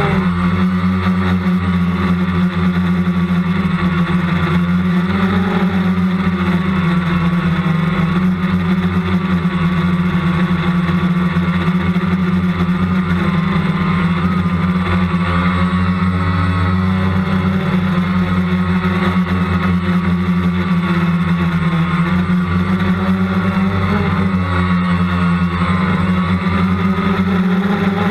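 Multicopter's electric motors and propellers droning steadily, heard from on board, the pitch wavering slightly as it manoeuvres.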